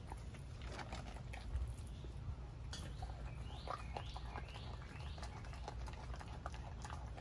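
Pit bull chewing a whole raw chicken, with irregular crunches and clicks of teeth on bone.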